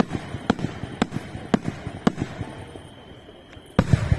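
Fireworks display: sharp bangs about twice a second with crackling between them, a short lull, then a dense cluster of loud bangs near the end.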